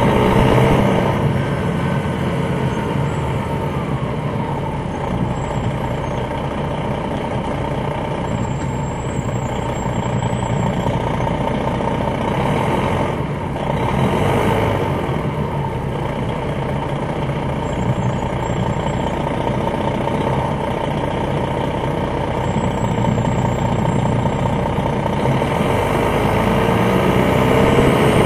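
Interior of a 2001 MCI D4000 coach with its Detroit Diesel Series 60 engine running under way. The note is steady most of the time, with faint high whistles now and then, and it climbs in pitch and grows louder near the end as the bus speeds up.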